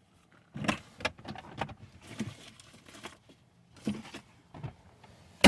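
Handling clatter of a loose dash air vent being tried in place: a series of irregular knocks, clicks and light rattles, ending in a sharp knock.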